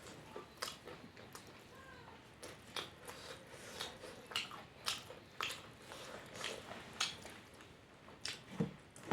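A person eating close to the microphone: chewing with irregular sharp mouth clicks and smacks, one or two a second, and a louder low thump near the end.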